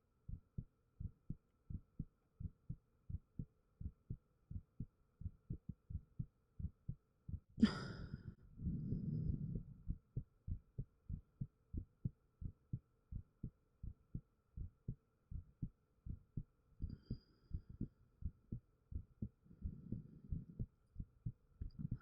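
A human heartbeat picked up close through a 3Dio binaural microphone: steady, regular low thumps. About eight seconds in there is a sharp click, then a couple of seconds of muffled rustling over the beats.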